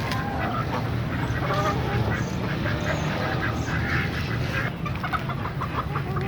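A flock of poultry calling over one another: many short, overlapping calls, over a steady low rumble in the background.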